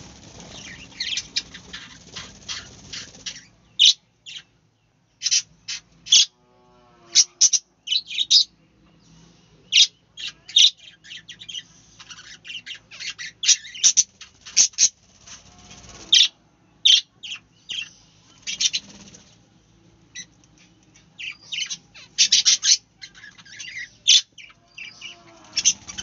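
A flock of budgerigars chirping: many short, sharp calls in quick, irregular runs, with the odd flap of wings as a bird flies.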